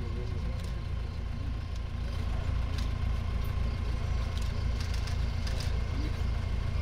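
Safari vehicle's engine idling with a steady low rumble.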